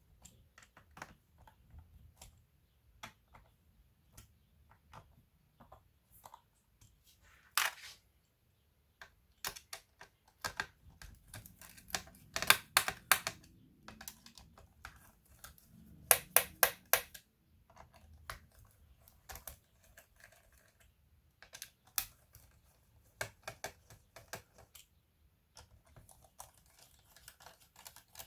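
Hands working on a laptop, irregular sharp clicks and taps of plastic parts and small tools. There are two quick runs of louder clicks around the middle.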